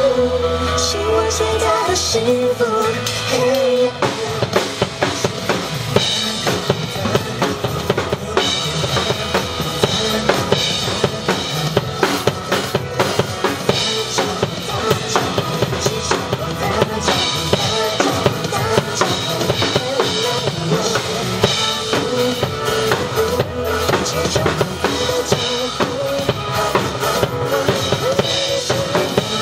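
Drum kit played along to a recorded pop song, with kick drum and snare hits going steadily throughout over the backing track.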